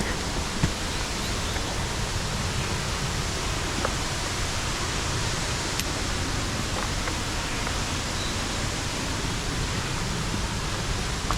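Steady rushing of a mountain waterfall, with a few faint short clicks over it.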